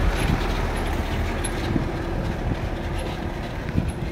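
Mitsubishi Triton pickup driving slowly over a gravel road: engine running and tyres crunching on loose stones, growing slightly fainter as it moves away.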